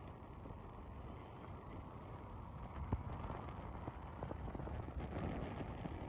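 Wind buffeting the microphone, an uneven low rumble with scattered handling clicks and one sharp knock about halfway through.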